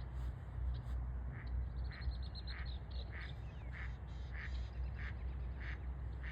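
A bird calling in a run of short, evenly repeated calls, about two a second, over a steady low rumble.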